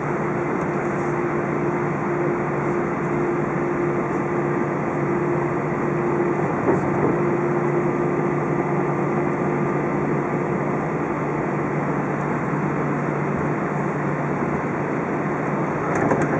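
Steady cabin noise inside an Airbus A320 taxiing on the ground: the engines at idle and the cabin air run as an even rush, with a steady hum that fades out about ten seconds in.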